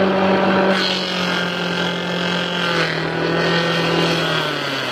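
Wooden mini forage chopper, driven by a Shimizu water-pump motor through a V-belt, running and chopping leafy fodder with a steady mechanical hum. Near the end its pitch sags as the machine slows.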